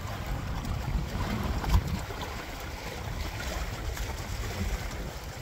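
Wind blowing on the microphone over water lapping and splashing against the hull of a sailing outrigger canoe, with a brief thump about a second and a half in.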